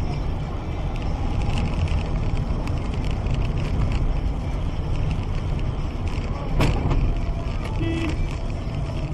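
Steady road and engine noise heard inside a car cruising at highway speed, a constant low rumble, with one short click about two-thirds of the way through.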